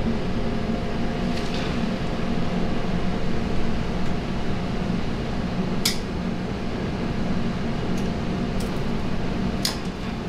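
Steady hum of kitchen ventilation with a few sharp clinks of kitchenware, the loudest about six seconds in.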